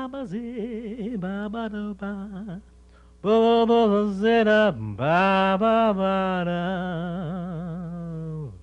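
A man singing a wordless, unaccompanied melody with wavering pitch. A short broken phrase comes first, then after a brief pause a longer phrase of long held notes that slides down at its end.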